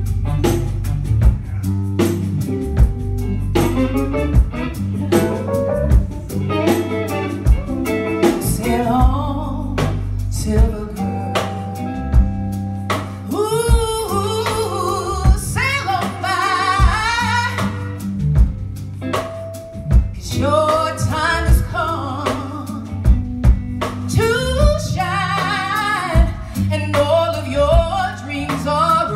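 Gospel choir performing live: a woman's lead voice sings a wavering melody over a band of bass and drums.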